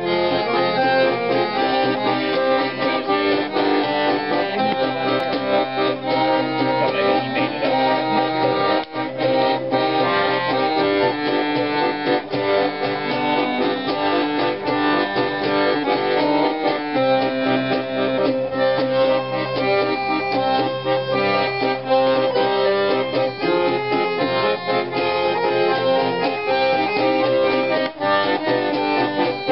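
Piano accordion and guitar playing a folk ballad together, with the accordion carrying the tune over the strummed guitar.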